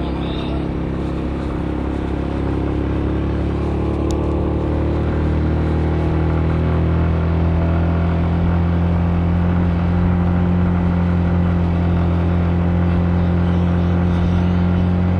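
Car engine and road noise while driving, the engine note rising a little a few seconds in as the car picks up speed, then holding steady.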